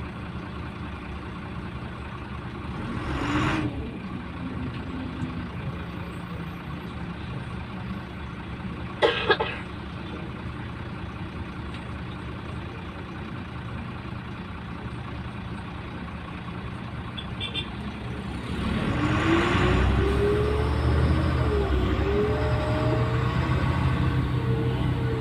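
Second-generation Güleryüz Cobra GD-272 city bus engine running at idle, with two short hisses of air. About three-quarters of the way through the bus pulls away: the engine gets louder and its pitch rises, dips at a gear change, and rises again.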